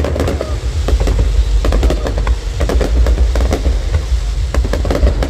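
Fireworks going off: repeated bangs and crackles from bursting shells over a heavy, steady low rumble.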